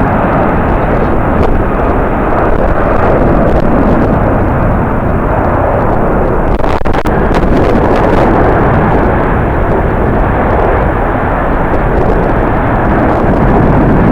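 Loud, steady roar of a jet airliner's engines, mixed with strong wind buffeting the microphone.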